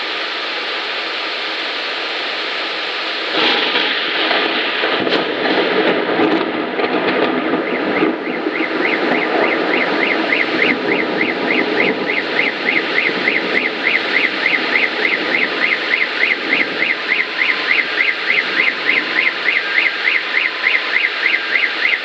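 Heavy rain pouring down steadily. About three seconds in, a clap of thunder breaks out and rumbles for several seconds; about eight seconds in, a car alarm starts up, a warbling siren sweeping up and down about three times a second over the rain.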